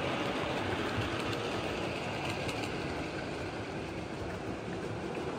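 00 gauge model trains running along the layout's track: a steady rumble of wheels and motors, with faint clicks scattered through it.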